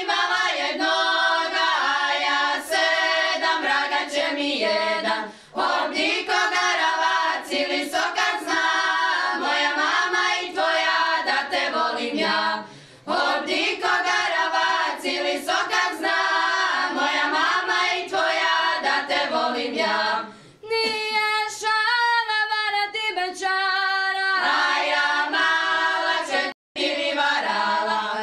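Women's folk singing group singing a Šokac folk song unaccompanied, several voices together in harmony. The long phrases break briefly about every seven seconds, with a sudden short drop-out near the end.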